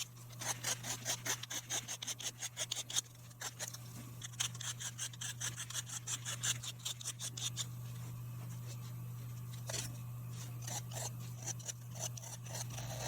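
A hand file rasping on a pipe stem's hardened superglue-and-carbon build-up in quick repeated strokes, about four a second, thinning out to a few scattered strokes from about eight seconds in. A steady low hum runs underneath.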